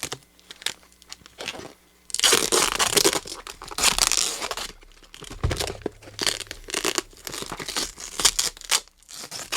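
Duct tape and cardboard wrapping being torn off a package: two long ripping sounds about two seconds in, then crinkling and small clicks, with a dull bump midway.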